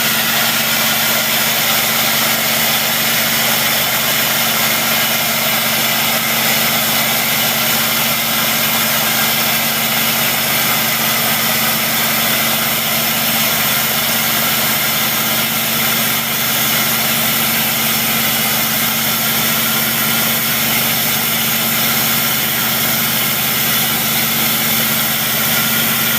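Motor-driven vacuum pump of a manhole vacuum tester running steadily, drawing vacuum on the sealed manhole as the gauge climbs toward 10 inches of mercury.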